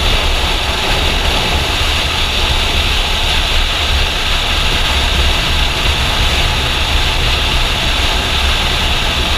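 Motorcycle at steady highway speed heard from a helmet-mounted camera: a constant rush of wind over the microphone with a low drone from the engine and road underneath.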